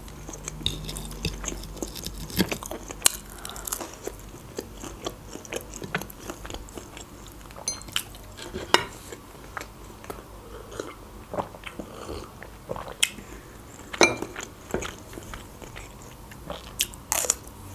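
A person chewing food close to the microphone, with irregular wet mouth clicks and crunches, a few of them sharper and louder.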